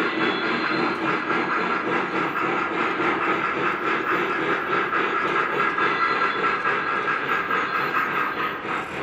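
Lionel O-gauge model steam trains running on three-rail track: a steady rumble of wheels and motors with a rapid, regular clicking from the rails and a steam hiss from the locomotives' sound systems.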